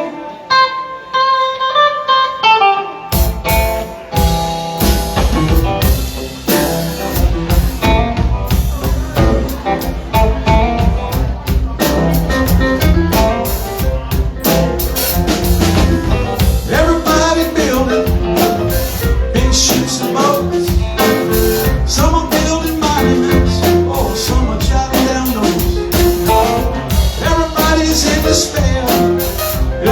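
Live blues-rock band playing: a lone guitar picks a few notes, then drums, bass and guitar come in together about three seconds in and keep going.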